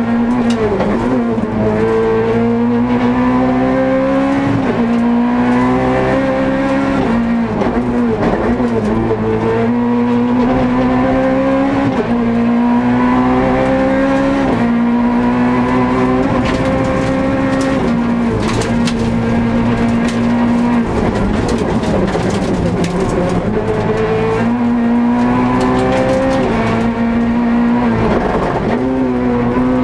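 Peugeot 208 R2 rally car's naturally aspirated four-cylinder engine heard from inside the cabin, driven hard along a special stage. The engine note climbs again and again, then drops sharply at gear changes and when lifting for corners.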